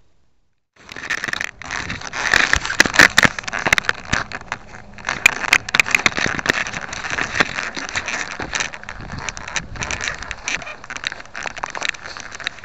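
Crackling, scraping and clicking handling noise on a small on-board keychain camera's microphone as a crashed foam RC plane is picked up and carried through grass and brush. It starts suddenly about a second in after near silence.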